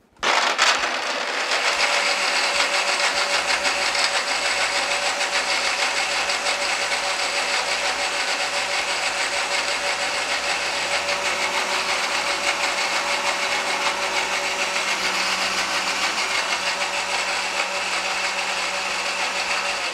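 Countertop blender motor starting suddenly and running at a steady speed, puréeing fresh tomatoes, nuts, basil and olive oil into a thick sauce with no added water.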